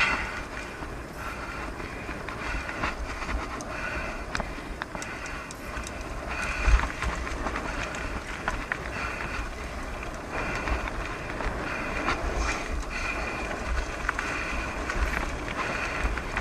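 Bicycle rolling fast over a gravel track, with a steady tyre rumble, scattered rattling clicks, and wind buffeting the handlebar-mounted microphone.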